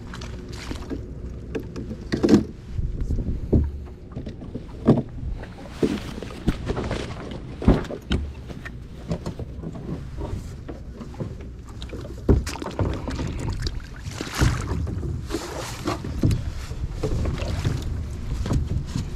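Irregular knocks, bumps and scrapes against a hollow plastic kayak hull and the gear loaded in it as someone climbs aboard at the water's edge.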